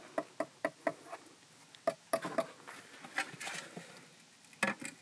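Light taps on a freshly laid brick, knocking it down into its mortar bed to level it: a quick run of about five taps in the first second, then scattered taps with a few short scrapes.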